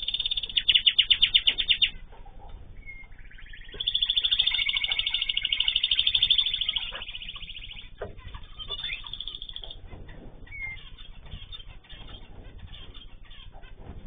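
Domestic canary singing in long, fast rolling trills: one trill runs into the first two seconds, a second starts about four seconds in and lasts about three seconds. After that there are only scattered short chirps and small clicks of birds moving about the aviary.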